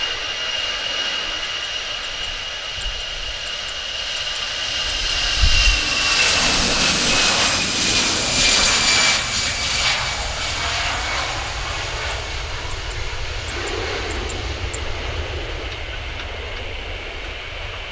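Airbus A320-214's CFM56 jet engines at takeoff thrust during the takeoff roll. A steady high whine drops a little in pitch as the aircraft passes, then swells into a loud rushing noise. The noise eases slowly as the aircraft lifts off.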